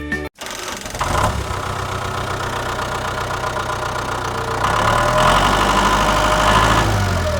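Engine running steadily at a low speed, getting louder about five seconds in.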